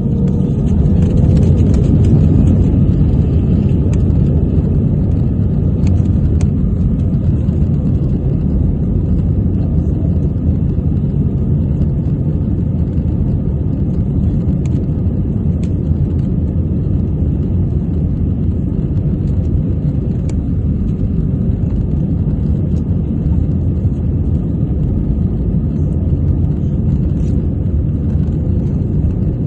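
Airbus A320 jet engines and airflow during takeoff, a loud, steady low rumble that swells slightly in the first couple of seconds and then holds level.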